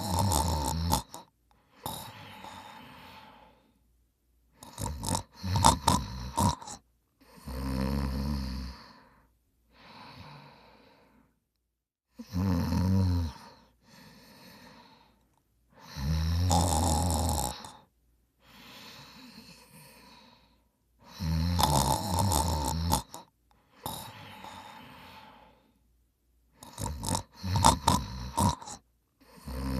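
A person snoring: loud snores a second or two long, about every four to six seconds, with quieter breathing out between them. Some of the snores break up into a rapid flutter.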